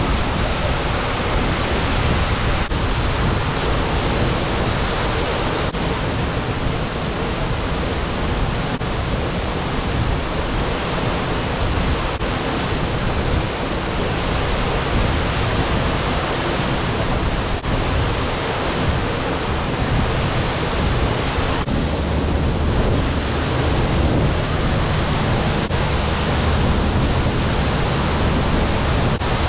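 Ozone Falls pouring into its pool: a loud, steady rush of falling water.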